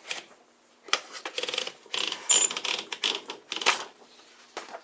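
1954 Royal Quiet De Luxe manual portable typewriter being typed on: a quick run of key strikes and typebar clacks for about three seconds, then a couple more clacks near the end.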